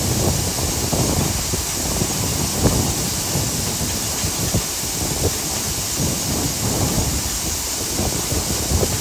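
New Holland T9.670 HD tractor pulling a Bourgault air drill and air cart through the field: a steady machine drone under a constant high hiss, with an uneven low rumble.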